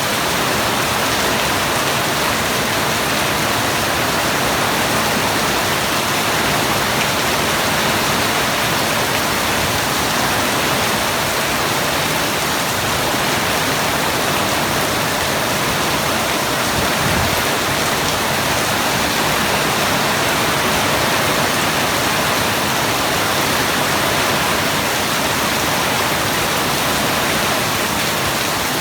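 Steady rainfall, an even, unbroken hiss of drops.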